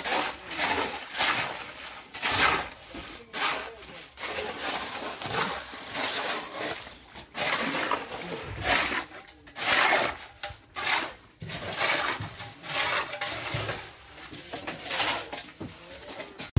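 Shovels scraping and crunching through gravel and cement as concrete is mixed by hand on bare ground. The strokes repeat about once or twice a second.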